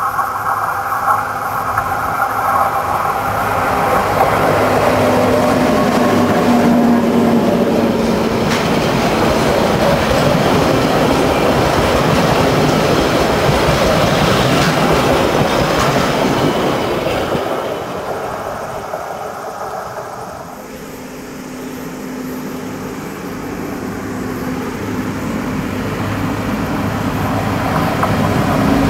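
NZ EF class electric locomotive and Overlander passenger carriages passing on a curve. There is a steady low hum under the rolling noise and clickety-clack of the wheels on the rails, loudest as the carriages go by. It fades about 18 seconds in, then builds again near the end as the train approaches once more.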